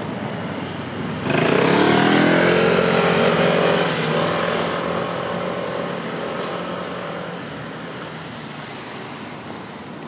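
A motor vehicle passing close by: a little over a second in its engine comes up suddenly, its pitch rising as it accelerates. It is loudest for about three seconds, then fades away over the next few seconds against a steady traffic hum.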